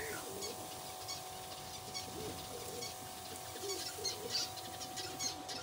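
Domestic pigeons cooing over and over in low, rolling coos, with a faint steady hum underneath. Short high chirps or ticks come in clusters in the second half.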